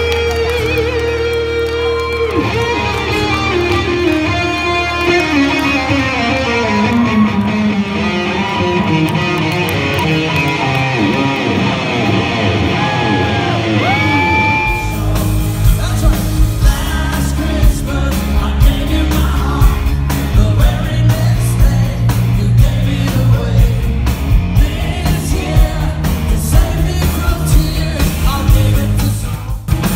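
Live rock band playing: electric guitar lines with sustained, bending notes over held chords, then about halfway through the drums and the full band come in with a steady beat.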